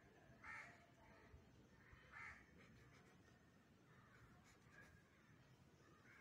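Near silence, with two faint crow caws about half a second and two seconds in.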